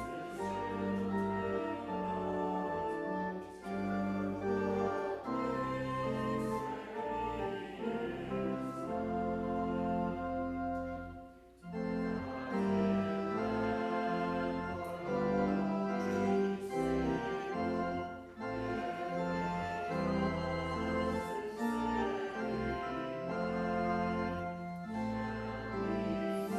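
Organ music: sustained chords moving from one to the next, with a short break between phrases about eleven seconds in.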